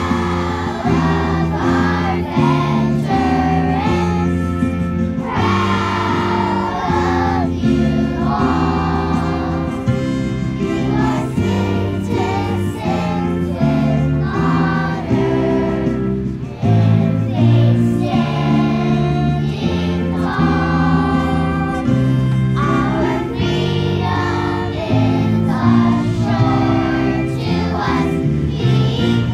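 A choir singing with instrumental accompaniment: held low chords that shift every second or so beneath the voices.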